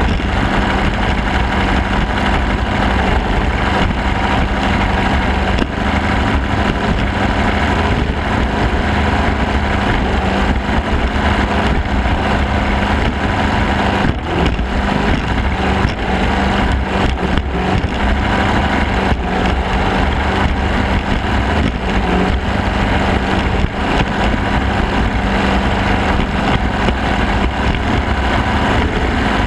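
Small racing boat's engine running steadily at speed, one unchanging pitch, with water spray and wind rushing past the microphone.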